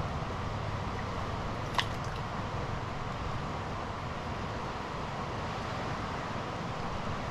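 Steady rush of a fast-flowing, flooded river, with one sharp click a little under two seconds in.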